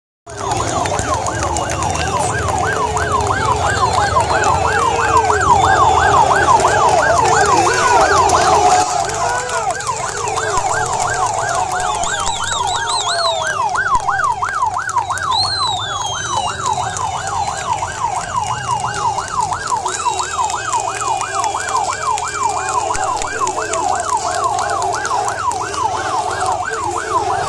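Police siren on a fast yelp, sweeping up and down about two and a half times a second, over the noise of a large shouting crowd. The crowd is louder for the first nine seconds, and a few high whistles glide up and down around the middle.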